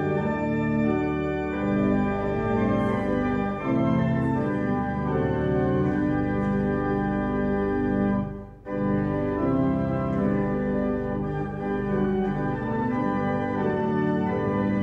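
Church organ playing a hymn in sustained chords, with a short break between phrases about eight and a half seconds in.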